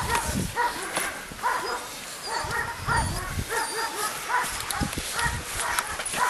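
Puppy barking over and over in short, high yaps as it lunges at a bite tug during bite-work play.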